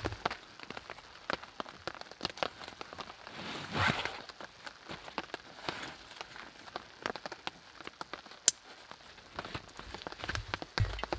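Rain tapping on a tarp shelter, many irregular drops over a steady patter. A louder brief noise comes about four seconds in, and a single sharp click later.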